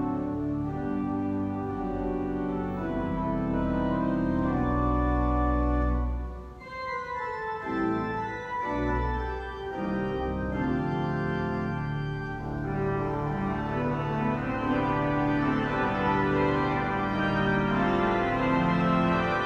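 Three-manual church organ playing sustained chords over a deep pedal bass. About six seconds in the bass drops out and it plays more softly for a few seconds, then the full chords return.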